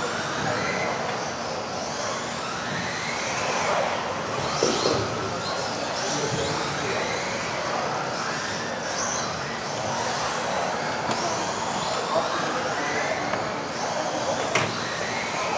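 Several RC off-road racing buggies with electric motors whining up and down in overlapping glides as they accelerate and brake around the track, over a steady hiss of tyres. There is one sharp knock near the end.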